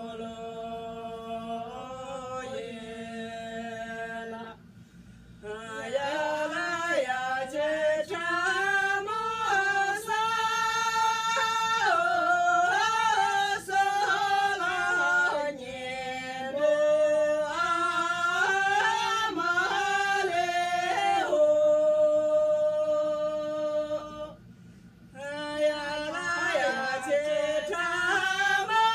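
Three women singing a song together, unaccompanied, in long held and gliding notes, with a brief pause for breath about five seconds in and again near the end.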